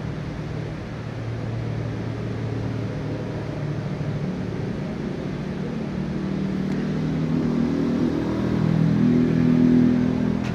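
An engine running, rising in pitch and getting louder toward the end.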